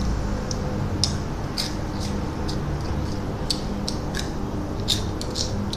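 Crunchy Flamin' Hot Cheetos being chewed: a dozen or so sharp, irregular crunches, over a steady low hum.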